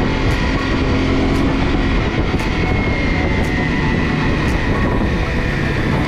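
Honda CRF 250 Rally motorcycle on the move: its single-cylinder engine runs steadily under a dense, even rush of wind noise.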